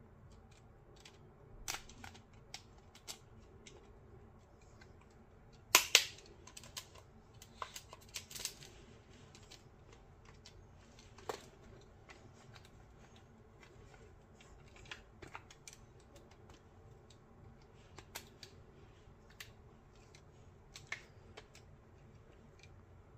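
Scattered clicks and knocks of a screwdriver and the plastic housing of a Teufel Bluetooth speaker being handled while it is unscrewed and taken apart. The loudest is a pair of sharp clacks about six seconds in.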